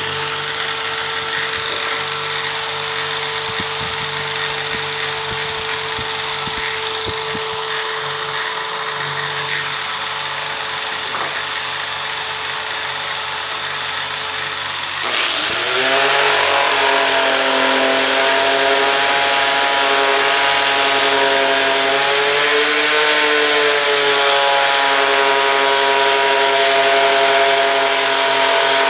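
Electric drill motor of a home-made bench drill running with a steady hum. About halfway through, the motor spins up with a rising whine and then runs on steadily. Its pitch sags briefly as it takes load, as when cutting wood.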